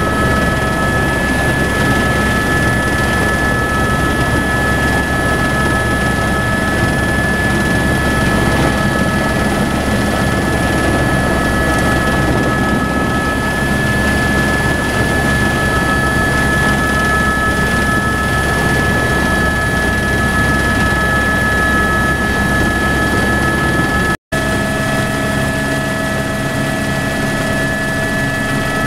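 Helicopter engine and rotor running steadily, heard from inside the cabin: a constant deep rumble with a steady high whine over it. After a brief break near the end the deep rumble is weaker, with the helicopter in flight.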